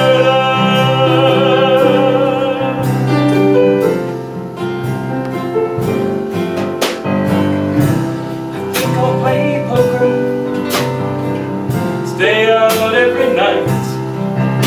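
Live cabaret song backed by piano, drums and guitar. A male singer holds a long note with vibrato for the first few seconds, then the band plays on with a few sharp drum or cymbal hits, and the voice comes back with vibrato near the end.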